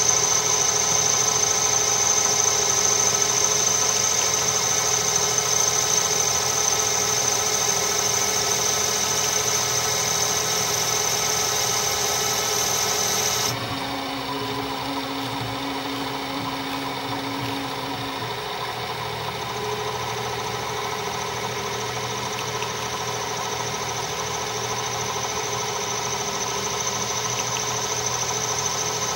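Metal lathe running with a turning tool cutting across the face of a small metal brake drum, a steady machine hum topped by a high cutting whine. About halfway through the whine cuts off abruptly and the lathe runs on more quietly; the whine comes back faintly later and grows louder near the end.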